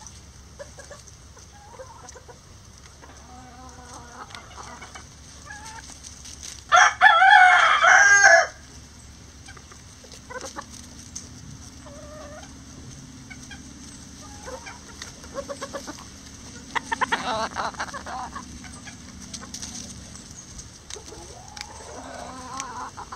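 A bantam rooster crows loudly once, about seven seconds in, and a fainter crow follows some ten seconds later. Hens cluck softly throughout.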